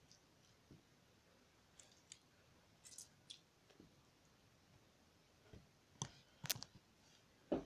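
Homemade glue slime squeezed, stretched and pulled apart by hand, giving off small sticky clicks and pops. They are faint and scattered at first, then a few louder ones come close together near the end. The slime is still a little sticky.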